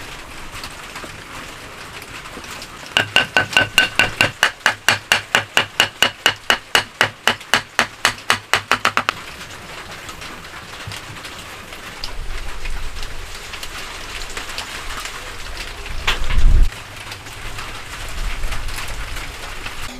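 A hammer striking rapidly and evenly, about five blows a second, each with a metallic ring, for about six seconds. Later comes rougher woodworking noise with one heavier thud.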